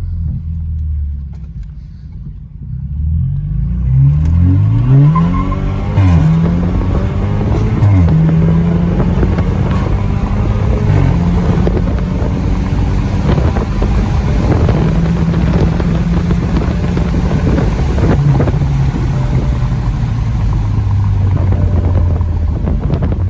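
Car engine accelerating hard through the gears: the pitch climbs several times, each climb cut off by an upshift, over the first eight seconds or so. It then settles into a steady, loud drone while cruising.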